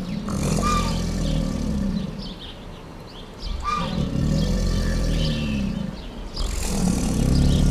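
American alligator bellowing: three long, deep rumbling bellows a few seconds apart, the last still going at the end.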